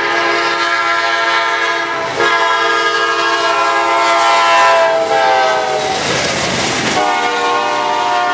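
Freight locomotive's air horn blowing a long, loud chord, broken off briefly about two seconds in, its pitch dropping as the locomotive goes past about six seconds in; the passing freight cars add wheel clatter.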